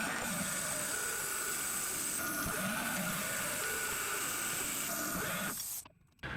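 Schaublin 125-CNC lathe running, a steady hiss with a faint high whine, cutting off suddenly near the end.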